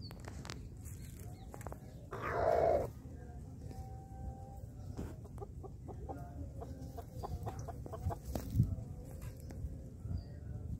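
Chickens clucking, with one short, loud squawk about two seconds in and a low thump near the end.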